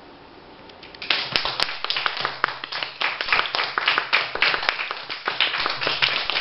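Audience clapping. It breaks out suddenly about a second in, after quiet room tone, and goes on as dense, uneven applause.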